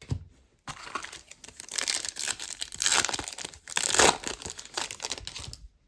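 Wrapper of an SPx hockey card pack being torn open and crinkled by hand. The crackling starts about a second in, runs in uneven surges that peak about four seconds in, and stops just before the end.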